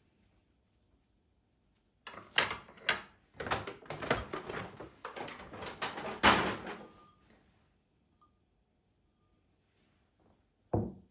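A run of household knocks and clatters, like a door or cupboard being handled, with two sharper hits, then one short low thud near the end.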